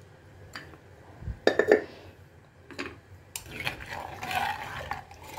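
Long metal spoon stirring thin tomato rasam in a stone kal chatti. It strikes the stone rim with two sharp clinks about a second and a half in, then scrapes and swishes through the liquid for a couple of seconds near the end.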